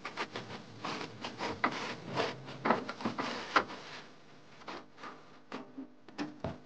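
Quick, irregular scraping and rubbing strokes of a hand tool worked against a wall surface, about four a second, thinning out after about four seconds into a few sharp knocks.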